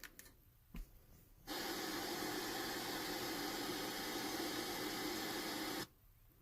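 A couple of faint clicks, then a steady hiss for about four seconds that starts and cuts off abruptly.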